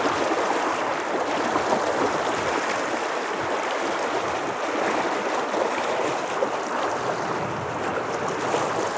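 Shallow river water rushing steadily over a rocky riffle.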